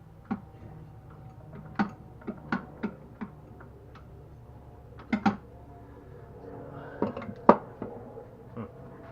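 Irregular metallic clicks and knocks as the starter clutch and flywheel of a vintage Tecumseh AH58 chainsaw are turned and handled by hand, the loudest knock about seven and a half seconds in.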